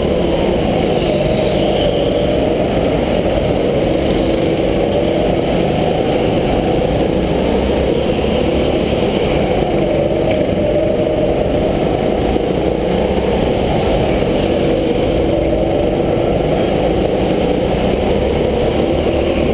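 Go-kart engine running at racing speed, its pitch rising and falling over and over as the kart speeds up out of the corners and slows into them, heard from the driver's helmet over a steady low rumble.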